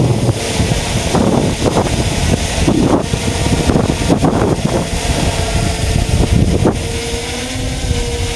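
Large multirotor drone hovering low overhead, its propellers giving a steady hum, heavily buffeted by wind on the microphone.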